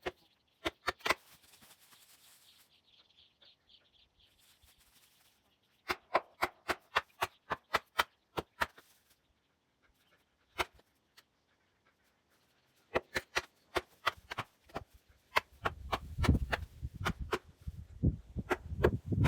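Hammer blows driving felling wedges into the cut of a large dead tree, in runs of sharp strikes about three a second with pauses between them. A low rumble comes in near the end.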